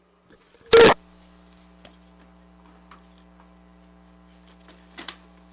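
A single loud sharp pop just under a second in, after which a steady electrical mains hum with a low buzz underneath carries on, with a few faint ticks.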